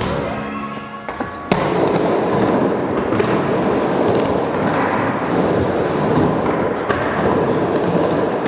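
Skateboard wheels rolling on a ramp: a steady rushing noise that starts abruptly about a second and a half in, with a few scattered knocks.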